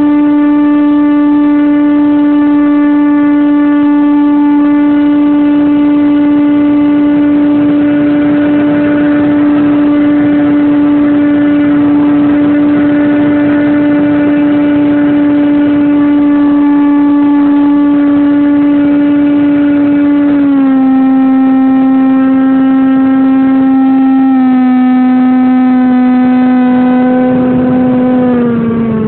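Motor and propeller of an RC model airplane, heard from the onboard camera: a loud, steady whine at constant throttle that steps down in pitch about 20 seconds in, again a few seconds later, and once more near the end as the throttle is eased back.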